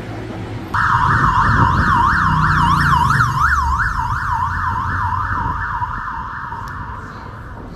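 Emergency vehicle siren in a fast yelp, a rapid rising-and-falling wail that cuts in suddenly about a second in and slowly fades away, over a low street-traffic rumble.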